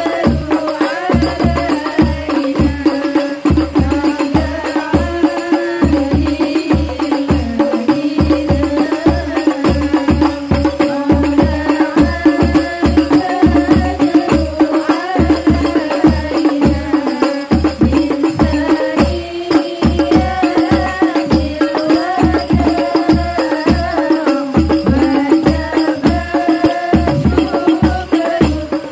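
Rebana frame drums beating a steady, even rhythm while a woman sings a melody over them into a microphone.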